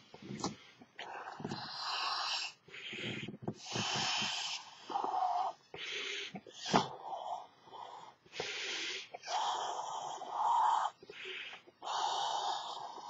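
A man blowing up a large latex elephant figure balloon by mouth: a run of hard, wheezy breaths, each breath drawn in and pushed into the balloon's neck as separate puffs.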